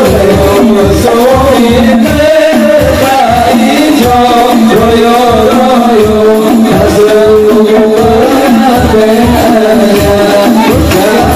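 Hadroh ensemble performing sholawat: men's voices singing an Arabic devotional melody together through microphones, over a steady beat of deep frame-drum strokes at about three or four a second.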